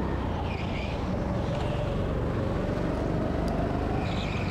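Rental go-kart engine running under load, heard from on board the kart. Its note sags briefly, climbs again through the middle, and drops back near the end.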